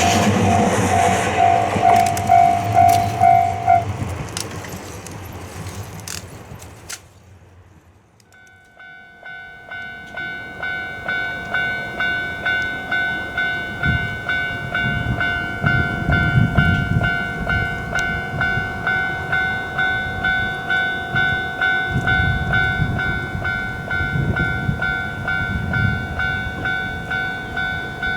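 A train passing a Japanese level crossing, with the crossing's warning signal pulsing over it, fades out. After a short silence another crossing's warning bell rings its steady "kan-kan" at about two strikes a second, with low rumbles swelling underneath twice.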